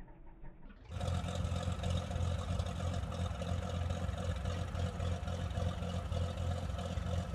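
Floatplane's piston engine and propeller running steadily, cutting in suddenly about a second in.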